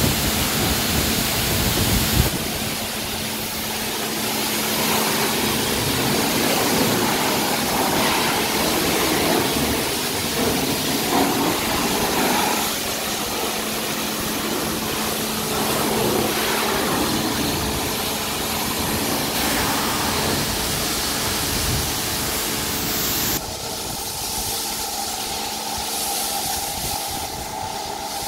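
Hiss of a CEMSA PWF2021 high-pressure washer's lance spraying water against a truck's cab, with a steady low hum underneath. Near the end the hiss turns abruptly duller and quieter as the lance lays on foam.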